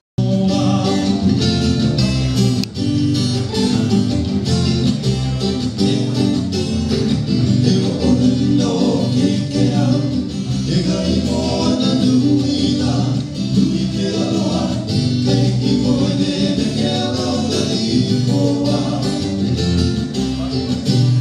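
Live Hawaiian music: singing over strummed guitars and a bass guitar, played as a hula accompaniment.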